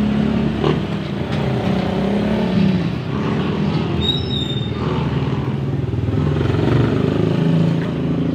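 A motor vehicle's engine running steadily close by, its low rumble wavering slightly in pitch, with a few light clicks of metal tongs on a grill grate.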